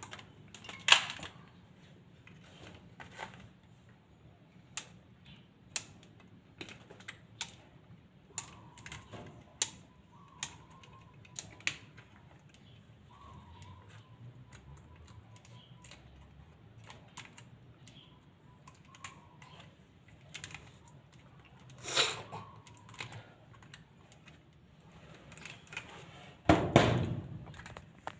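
Pliers clicking and snipping as electrical wires are cut and worked at a junction box: scattered sharp clicks, with a louder knock near the end.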